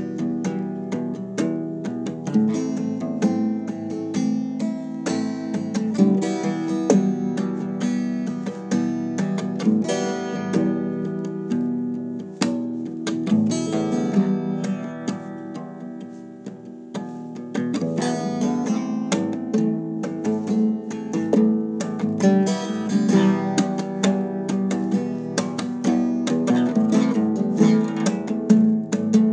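Acoustic guitar strummed and picked in a steady instrumental passage; it eases into a softer stretch about twelve seconds in and picks up again about five seconds later.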